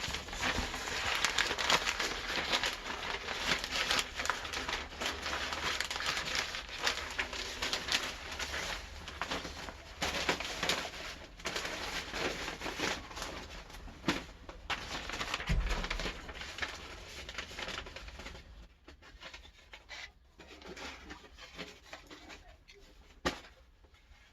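Rustling and crinkling of damp cardboard bedding and worm-bin material being handled and tipped out. It is dense and busy for most of the stretch, then thins to a few scattered rustles near the end.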